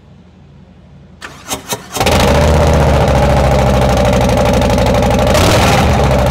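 Harley-Davidson Softail Low Rider S's Milwaukee-Eight 117 V-twin started through TAB Performance slip-on mufflers with Zombie baffles. It cranks briefly, catches about two seconds in and runs loud and pulsing, with a quick throttle blip near the end.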